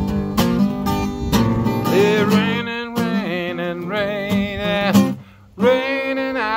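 Acoustic guitar strummed with a man singing; from about two seconds in he holds long wordless notes with a wavering vibrato. The music drops out briefly a little past the five-second mark, then the held singing returns.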